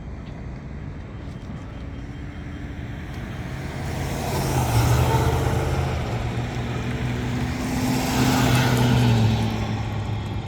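Road traffic: two motor vehicles pass one after the other, each swelling up with engine hum and tyre noise, loudest about halfway through and again near the end, over a steady background of traffic.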